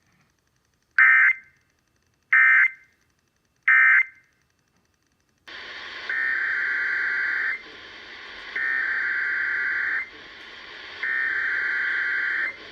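Emergency Alert System digital data tones: three short, loud burbling bursts about a second and a half apart, the end-of-message code that closes the test. After a pause, a hiss from a NOAA weather radio receiver starts, and over it come three longer bursts of SAME header data tones about a second apart.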